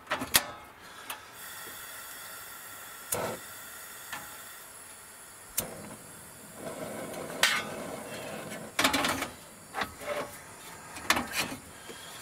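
A gas stove burner is lit with a lighter: a few clicks, then the flame catches and hisses steadily. Over it come scattered sharp knocks and clinks of a pot and cup being handled.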